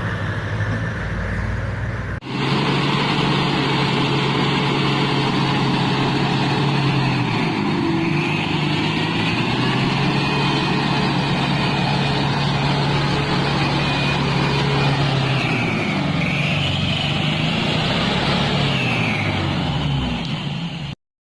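Off-road vehicle engine running under load, its pitch dipping and rising several times. The sound changes abruptly about two seconds in and cuts off suddenly near the end.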